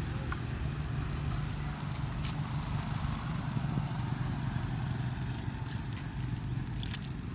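A motor engine running with a steady low drone, and a few faint clicks over it.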